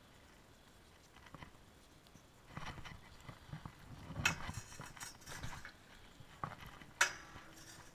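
A fishing magnet and its rope and carabiner being handled at a metal canal railing: a run of irregular knocks and clatters beginning a couple of seconds in, loudest about four seconds in and again near the end.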